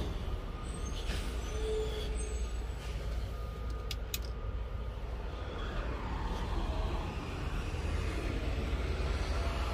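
Steady low rumble of idling diesel truck engines, with a couple of sharp clicks about four seconds in.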